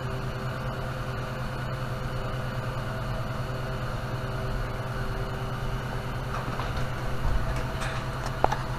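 Steady machine hum with a few fixed tones, unchanging throughout, and a couple of light clicks near the end.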